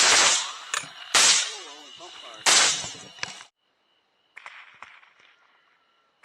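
Rifle shots fired at feral hogs in quick succession, about one every 1.3 seconds, each a sharp crack with a ringing tail; three fall in the first three seconds, then the sound cuts off suddenly.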